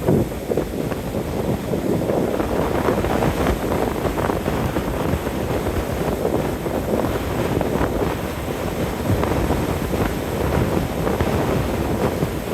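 Gale-force wind buffeting the microphone, a heavy low rumble that swells and eases, with large waves breaking on the shore beneath it.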